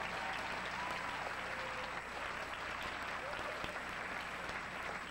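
Audience applauding in a hall, a dense steady clapping.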